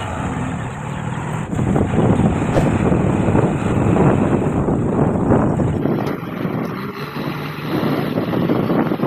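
JCB 3DX backhoe loader's diesel engine running, louder between about two and six seconds in.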